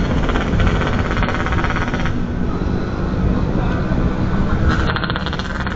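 Motorcycle on the move: steady engine and road noise while riding.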